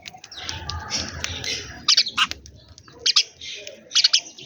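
Sparrows chirping: a busy chatter of calls with three bursts of loud, sharp chirps about halfway through, near three seconds and near the end.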